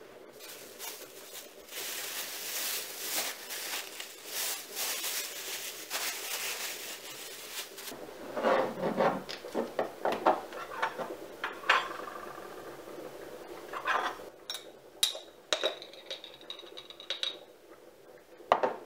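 A plastic bag rustles for several seconds. Then a glass jar is handled and opened, and a metal spoon clinks against the glass a few times, one clink ringing briefly.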